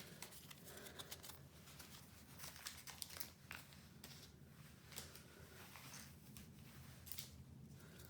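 Foil wrapper of a Pokémon TCG booster pack crinkling and tearing as it is handled and opened, faint scattered crackles.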